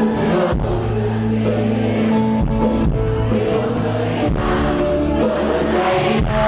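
Live band music with singing: a Thai song performed on stage over a steady bass line and beat.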